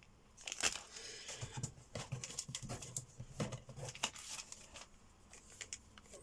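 Plastic model-kit parts and their bags being handled: irregular light clicks and soft rustling, the sharpest click under a second in.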